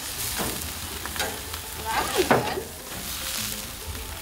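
Pompano fillets sizzling over flaring flames on a Camp Chef Apex grill, with a metal spatula and tongs scraping on the grates as the fish is turned. A short wavering tone sounds about two seconds in.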